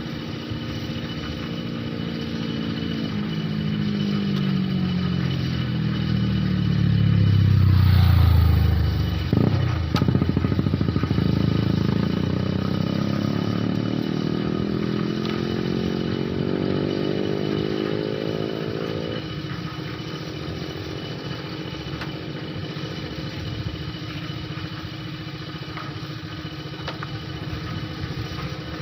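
Small motorcycle-type engine running. Its pitch sinks over several seconds, and the sound is loudest near the bottom of the dip about eight seconds in. The pitch then climbs back over the next ten seconds and settles into a steady run, with a single sharp click about ten seconds in.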